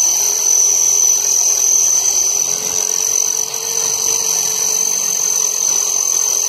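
Corded electric drill running steadily at full speed, with a high whine, its bit pressed against a metal corner bracket clamped in a vise. The bit is not cutting well: the user judges it worn out and needing replacement.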